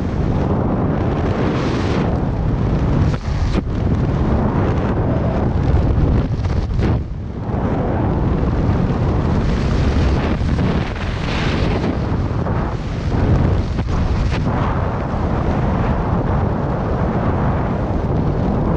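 Loud rushing wind buffeting the camera microphone of a skydiver flying under a parachute canopy. It gusts up and down and drops off briefly twice.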